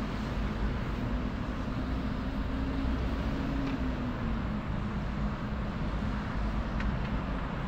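Steady city road traffic: cars and buses running past on a wide road, a low even rumble with a faint engine hum drifting slightly in pitch.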